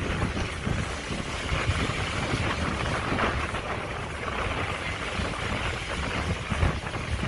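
Wind buffeting the microphone: an uneven low rumble with a hiss above it, gusting up and down.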